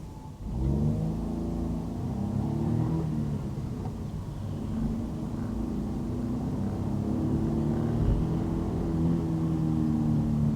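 Car engine accelerating from low speed. Its pitch climbs, drops back about three to four seconds in, and climbs again, as with an upshift.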